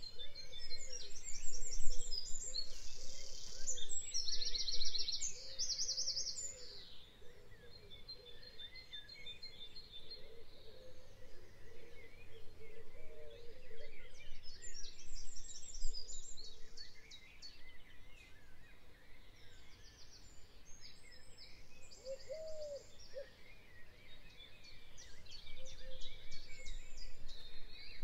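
Birds chirping in several bursts of rapid, high-pitched trills over steady background noise.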